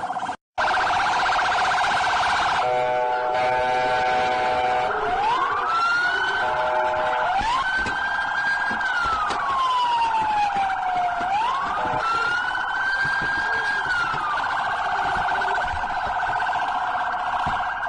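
Police car electronic siren cycling through its tones: a fast warbling yelp, a brief steady honk about three seconds in, then a slow wail rising and falling several times, and back to the fast yelp near the end.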